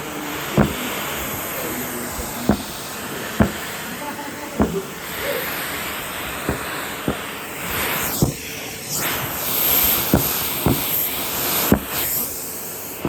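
Numatic Henry cylinder vacuum cleaner running with a steady rushing hiss, broken by a dozen or so sharp clicks and knocks. The rushing sound shifts briefly about eight seconds in.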